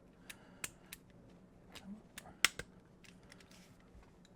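A few light metallic clicks and taps of the reproduction Colt Dragoon revolver's steel parts being handled and fitted during reassembly, the sharpest single click about two and a half seconds in.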